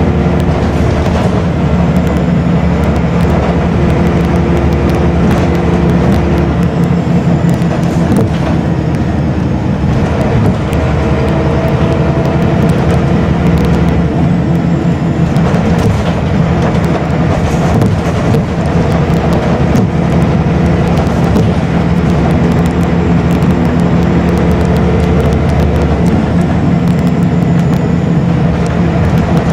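Scania L94UB bus engine and ZF automatic gearbox running under way, heard from inside the passenger saloon. The engine note changes several times, and there are frequent small rattles and clicks from the bodywork.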